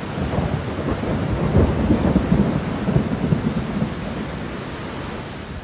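Thunderstorm sound: a low, crackling rumble of thunder over a steady rain hiss, swelling in the middle and fading out at the end.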